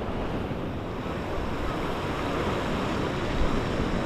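Ocean surf washing steadily against the inlet jetty, with some wind rumble on the microphone.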